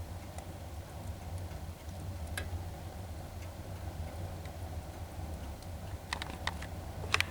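Log fire crackling, with sharp pops and snaps from burning wood, sparse at first and then a quick cluster near the end, over a steady low hum.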